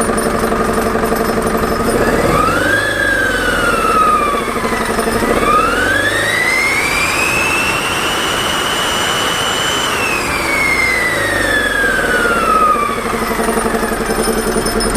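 Turbocharged engine idling, then revved twice, a short rev and then a longer one held for several seconds, with a high whine that rises and falls with the revs. The whine is the turbocharger, the sign of a failing turbo.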